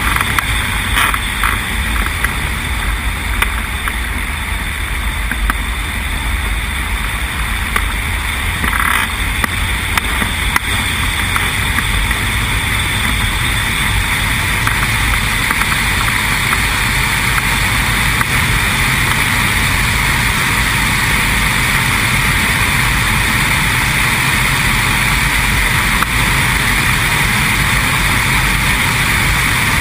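Steady rush of air and engine noise from a weight-shift ultralight trike in flight, with wind buffeting the microphone; it grows slightly louder about a third of the way in.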